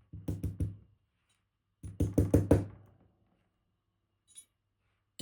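Two quick runs of sharp knocks, about four near the start and about five two seconds in, then one faint tick: the disassembled Vachette Radial dimple lock being tapped to get its pins out.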